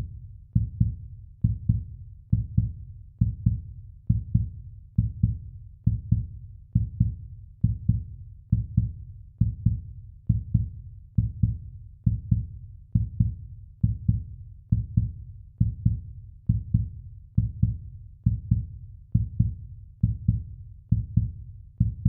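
Heartbeat sound effect: a steady run of low double thumps (lub-dub), a little more than one beat a second.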